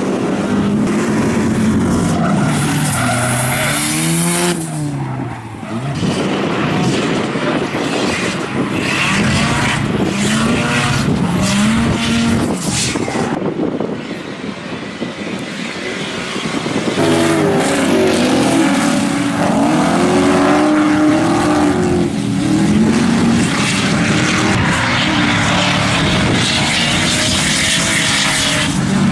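Drift cars sliding through a corner: engines revving up and down hard while the tyres squeal and skid on the pavement. From about halfway in, two engines are heard at once as cars drift in tandem.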